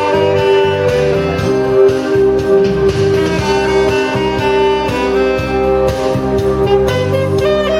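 Saxophone playing live over a backing of bass and a regular drum beat, with one long note held through most of the passage.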